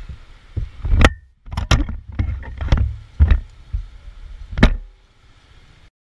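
A series of sharp knocks and thumps, about six in a few seconds, over a low rumble, cutting off suddenly near the end.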